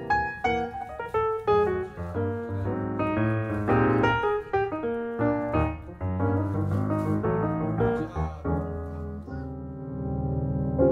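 Background piano music: quick runs of notes settling into a held chord near the end.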